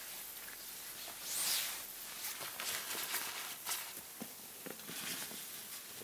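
Swishing and rustling of a hammock's mesh mosquito net and fabric being handled, with light footsteps and small knocks.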